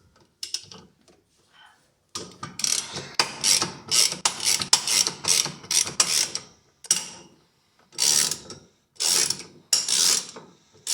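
Hand ratchet with a 1/2-inch socket clicking in repeated bursts as it loosens a washing machine's transmission mounting bolt, mostly quiet for the first two seconds.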